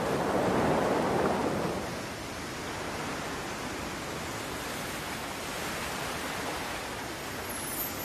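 Ocean surf washing over rocks, with wind. A wave swells up over the first couple of seconds, then a steady wash.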